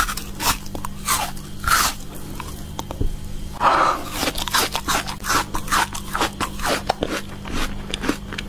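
Close-up mouth sounds of biting into and chewing frozen yellow fruit. There are two louder bites, about a second and a half in and again around four seconds, then rapid crunchy chewing with many small crackles.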